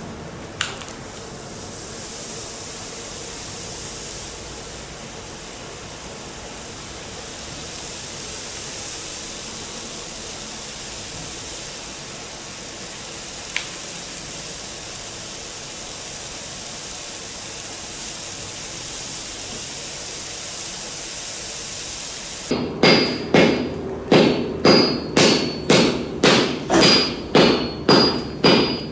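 Steady hiss of the forge fire with a couple of small clicks, then about 22 seconds in a hand sledgehammer starts striking a red-hot Damascus billet of forge-welded concrete nails on a steel anvil block, about two blows a second, each with a short metallic ring.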